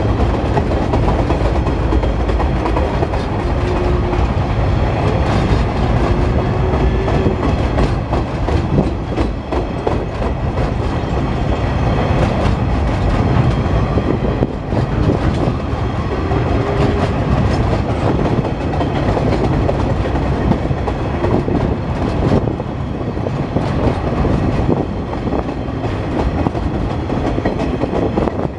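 Freight train of flat wagons loaded with empty bauxite containers rolling past at close range: a steady rumble of steel wheels with clickety-clack over the rail joints. A few brief squealing tones from the wheels come and go.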